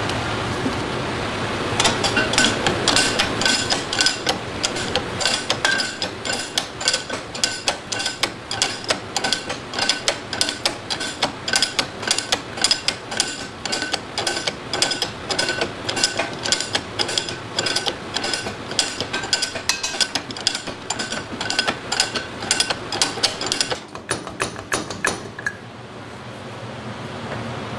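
Steel ball-peen hammer striking a universal joint on a driveshaft yoke in a steady run of two or three ringing blows a second, driving out the joint's needle-bearing cups. The blows start about two seconds in and stop near the end, followed by a few lighter clicks.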